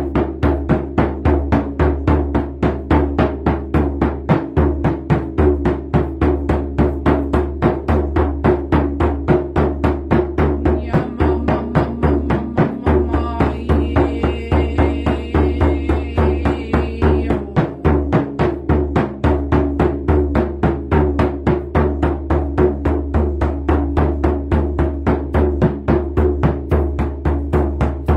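A hand drum beaten in a steady, even rhythm of about three strikes a second, each beat low and booming. A faint high shimmer joins for a few seconds in the middle.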